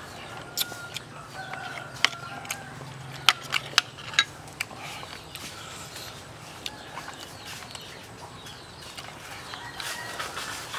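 Wooden chopsticks and a metal spoon clicking and scraping against a stainless steel tray while the flesh of a steamed mackerel is picked apart, with sharp clicks clustered in the first half. Short bird calls sound in the background during the first few seconds.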